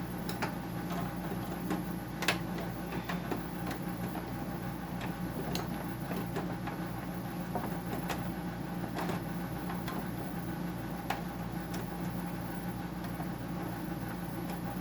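Hand tools clicking and knocking on a dehumidifier's plastic and metal casing as a hidden screw is worked out, a few sharp clicks spread through the stretch. A steady low machine hum runs underneath.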